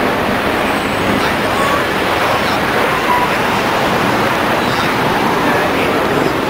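Loud, steady busy-street din of road traffic with a crowd's voices mixed in.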